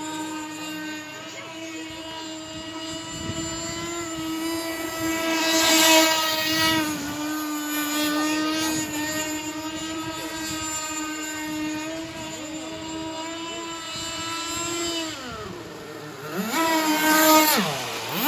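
Fast radio-controlled model boat's internal-combustion engine running flat out, a steady high-pitched buzz. It swells louder about six seconds in as the boat passes closer. Near the end the pitch sags and then climbs back up as it comes by loudest.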